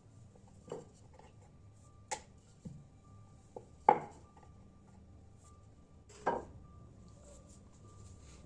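Kitchen utensils knocking and clinking against cookware: about six separate, irregularly spaced knocks, the loudest about four seconds in.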